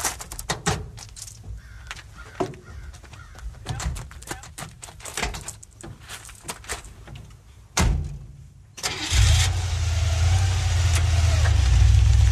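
Small scattered clicks and knocks, then a single thump about eight seconds in. Just after it a car engine starts and keeps running steadily and loudly.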